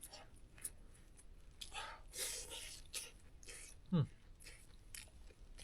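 Someone eating close to the microphone: chewing and mouth noises with scattered light clicks. About four seconds in there is a short low 'mm' that falls in pitch.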